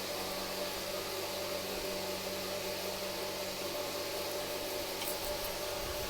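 Steady background hiss with a faint continuous hum.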